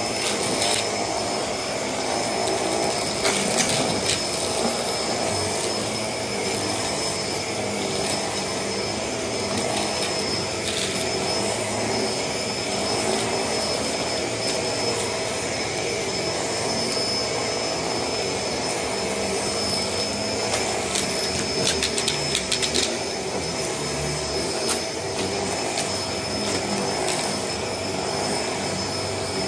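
Bagless upright vacuum cleaner running steadily over a dirt-covered shag rug, its motor giving an unbroken whine, with scattered short clicks and rattles as debris is sucked up into the dust cup.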